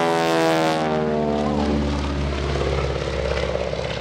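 Stearman biplane's radial engine and propeller passing close by, loudest in the first second with a rushing propeller noise, the engine note falling in pitch as it goes past, then settling into a lower steady drone as it moves away.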